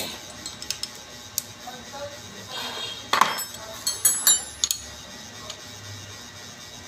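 Metal clinks and taps of a combination wrench working the bolts on a forklift starter motor's housing: scattered light clicks, then a cluster of sharper ringing clinks about three to four and a half seconds in.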